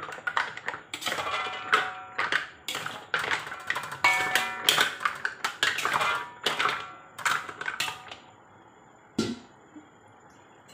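Metal spatula clattering and scraping against a large metal wok and the mussel shells as the mussels are tossed, with each hit ringing briefly. The clatter stops about eight seconds in, and a single knock follows a second later.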